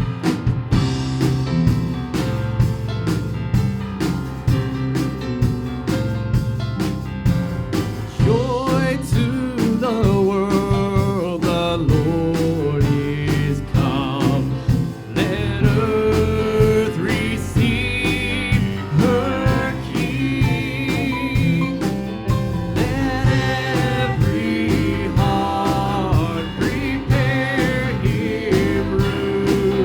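Worship band playing a country-gospel song with a steady beat, guitar and bass; sung vocals come in about eight seconds in and carry on.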